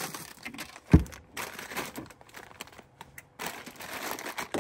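Crinkling and rustling of crinkly material being handled, in irregular bursts. A single sharp thump about a second in is the loudest sound.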